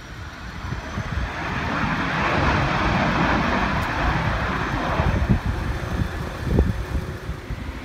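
Jet engine noise from a regional jet on the runway, a rush that swells over a couple of seconds, holds, then eases off as the jet moves along. Wind buffets the microphone with low rumbling gusts throughout.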